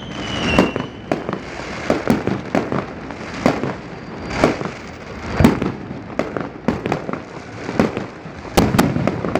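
Fireworks going off: sharp bangs and pops at irregular intervals, at times several a second, with a falling whistle at the start. The loudest bang comes about halfway through.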